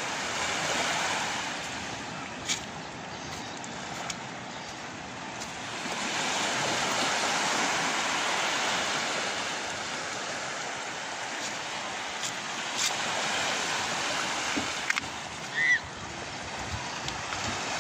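Sea waves washing onto the shore, a steady rushing wash that swells for a few seconds in the middle. A brief high-pitched cry near the end.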